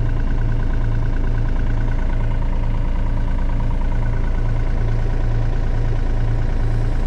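Mini digger's diesel engine running steadily with an even low pulsing, while the boom is swung round on its hydraulic swing ram.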